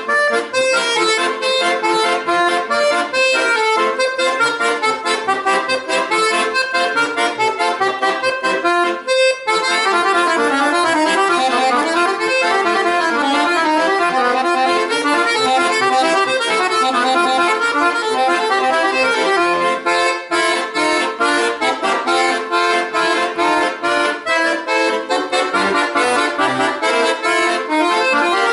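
Solo accordion playing a fast piece, with quick runs of notes over full chords and a brief break about nine seconds in.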